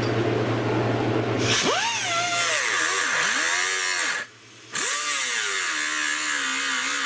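A small hand-held power grinder runs, then bites into the tail light's retaining clips about a second and a half in. Its pitch sags and recovers as it is pressed in, with a short break about two-thirds of the way through.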